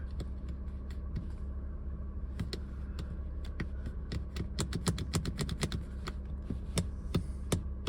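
Irregular, rapid clicking of a car's roof switch being pressed again and again over the steady low hum of the idling engine. No roof motor starts: the new switch panel has not cured the Vauxhall Tigra's dead folding roof.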